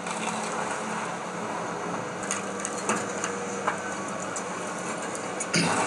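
Excavator demolishing a wood-frame house: the machine's engine runs steadily under several sharp cracks of breaking wood, with a louder crash of collapsing debris near the end.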